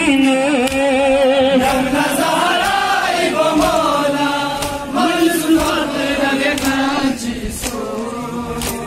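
Men's voices chanting a noha, a Muharram mourning lament, together in a rising and falling melody, with a few sharp slaps of hands on chests.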